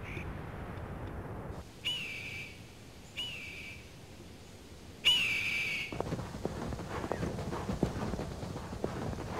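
A bird of prey calling three times, high whistled screams that rise and then fall, the last the loudest. From about six seconds in, a caribou herd on the move, hooves clattering irregularly over the ground.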